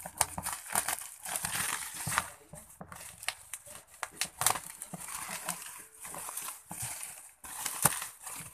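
Parcel packaging being handled and unwrapped by hand: irregular rustling and crinkling with scattered sharp taps and knocks.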